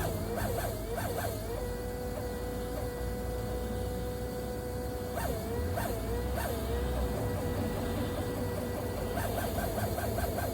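Strange noise from a DS7 Crossback: a high-pitched whine that chirps about four times a second, then settles into a steady tone for a few seconds. It breaks into chirps again around the middle and once more near the end, over a steady low rumble.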